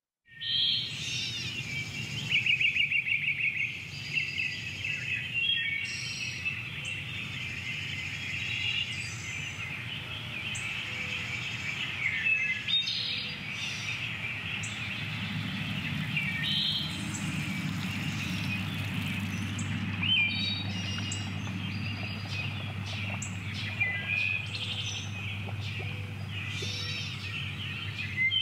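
Several songbirds singing and chirping at once, overlapping short calls with a fast trill a few seconds in, over a steady low background hum.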